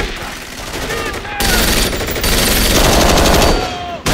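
Rapid automatic gunfire in long, dense bursts from several weapons at once, building to its heaviest volley just past the middle and easing near the end.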